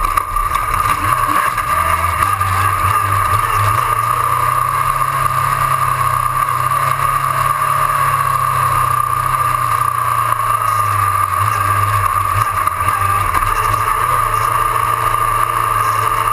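Autocross race car's engine running hard at speed on a dirt track, heard through a camera mounted on the bonnet, with a constant steady whine over the engine note. The engine pitch climbs about four seconds in and eases slightly after ten seconds.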